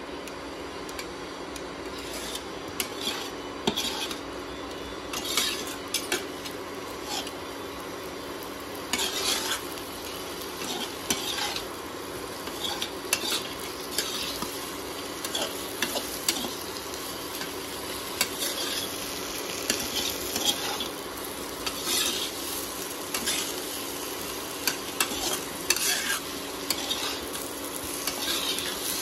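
A perforated steel spatula stirring and scraping spiced potato pieces around a nonstick kadai, with irregular scrapes and taps, while the masala sizzles as the potatoes are dry-roasted (bhuna) in it. A steady low hum runs underneath.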